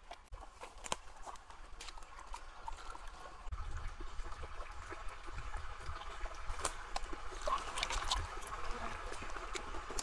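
Water trickling and splashing, with scattered small clicks and knocks.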